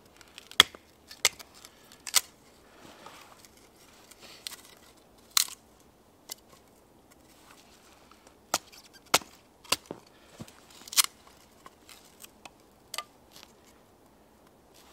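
Firewood being split by batoning: a birch log strikes an upright piece of wood, giving about ten sharp wooden knocks at uneven intervals. Softer rustling and handling come between the strikes.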